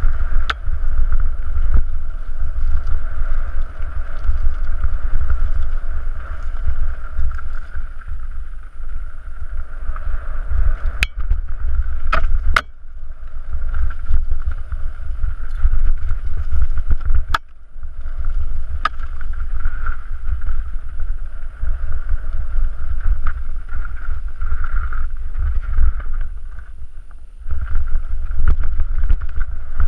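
Mountain bike descending a rocky singletrack, heard from a camera riding on the bike or rider: heavy wind rumble on the microphone, a steady buzz that cuts out briefly a few times, and a few sharp knocks as the bike hits stones.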